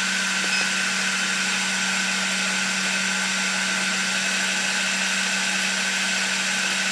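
Milling machine running steadily with its spindle turning, a constant motor hum and whine that holds unchanged.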